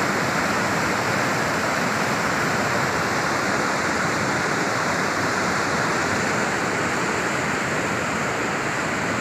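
Muddy river in flood rushing over rocks and pouring over a low weir: a steady, even rush of water.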